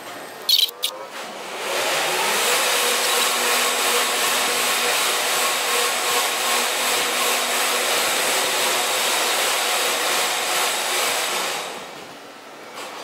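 Charles Berry Bascule Bridge's lift machinery running as the leaves rise: a whirring motor hum with a broad hiss. It climbs in pitch as it starts, holds steady, and dies away near the end as the leaves reach their open position. Two brief loud clicks come about half a second in, just before it starts.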